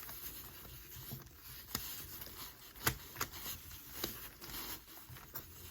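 A 3x3 Rubik's cube being turned slowly by gloved hands: irregular soft clicks of the plastic layers turning, a few sharper clicks among them, with light rustling.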